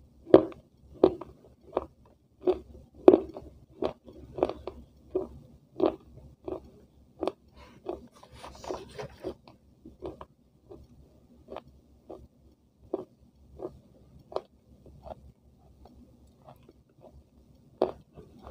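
Close-up chewing of a crunchy white piece: a crunch about every 0.7 seconds, loud at first and growing softer as the mouthful is ground down, with one fresh louder crunch near the end.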